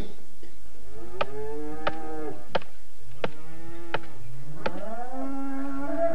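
Cows, Swedish mountain cattle, mooing: two long calls that rise in pitch and then hold, one about a second in and one near the end. Regular clicks sound about every 0.7 s between the calls.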